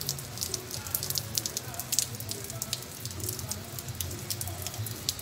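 Rain falling close by: a dense, irregular run of sharp raindrop taps over a low steady hum.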